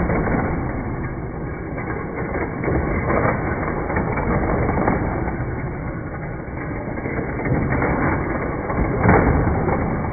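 Hot Wheels track set running: the battery-powered boosters in the central hub whir steadily as die-cast toy cars rattle around the plastic loops, with several sharp clacks of cars hitting track and each other, the loudest near the end.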